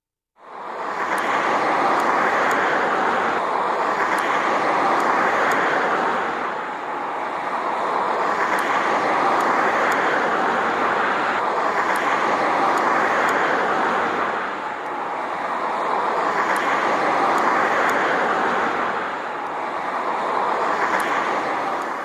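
Laundromat washing machines running: a loud, steady churning rush that starts suddenly and swells and eases about every four seconds, with faint ticks over it.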